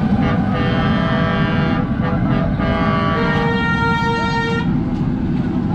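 Vehicle horns honking in long, steady blasts, several at different pitches overlapping, over a constant low rumble of street traffic; the horns stop about four and a half seconds in.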